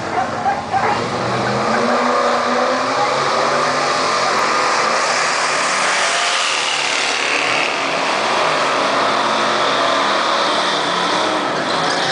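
Drag-racing muscle-car engine revving hard during a burnout at the start line, with tyre noise. The loud steady run builds up about a second and a half in and holds.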